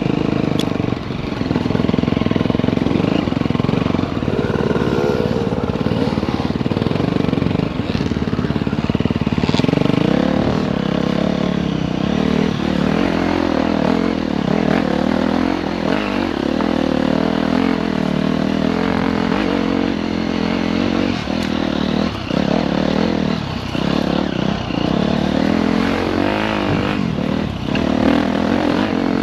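Dirt bike engine running hard off-road, its pitch rising and falling as the throttle is worked, with scattered knocks and clatter.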